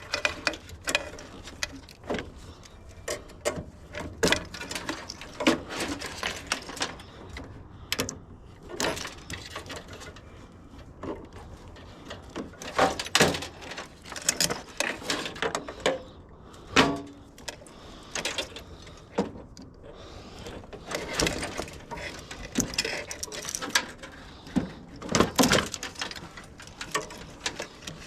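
Irregular clicks, clanks and rattles of hand tools and small metal and plastic parts being handled and pulled apart during a scrap teardown, some knocks sharper and louder than others.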